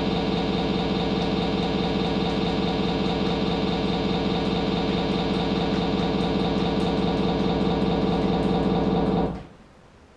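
A small engine running steadily at a constant speed, then cutting off suddenly about nine seconds in.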